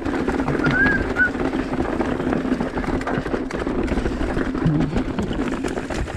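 Mountain bike rolling over a rough, rocky trail: constant rumble of tyres on dirt and rock with the chain and frame rattling and clicking over the bumps. A few short high chirps sound about a second in.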